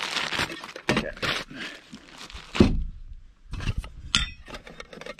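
Metal camp cookware being handled: clinks and knocks as a pot, gas canister and mug are taken apart and set down on a wooden table, with one heavier thunk about two and a half seconds in and a short metallic ring near four seconds.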